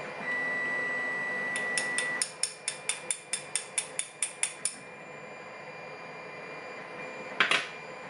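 A quick, even run of about fifteen light metallic clicks, about five a second, as a pin-tumbler lock cylinder is handled with tweezers over a plastic pin tray while its pins and springs are removed, followed near the end by one sharper click.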